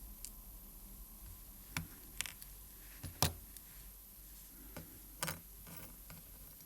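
Small sharp clicks and taps of watchmaker's tools and parts on a vintage Omega caliber 565 movement being stripped down: about half a dozen scattered clicks, the loudest about three seconds in.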